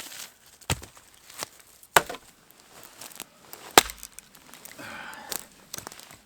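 Firewood being chopped: three loud, sharp strikes a second or two apart, with lighter knocks between them.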